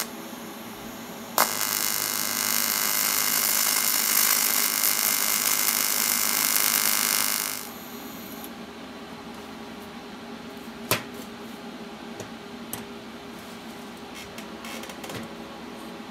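AC TIG welding arc buzzing on cast aluminum as filler rod is laid into a groove, running steadily for about six seconds before the arc cuts off. A single sharp click comes a few seconds later.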